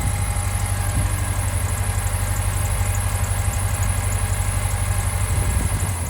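Honda S2000's four-cylinder engine idling steadily, with a slight squeak that the owner puts down to the worn accessory drive belt.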